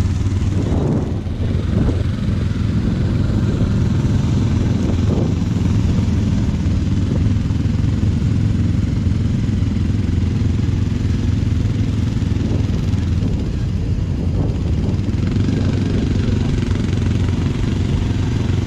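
Quad (ATV) engine running at a steady idle close by, with a low, even hum throughout.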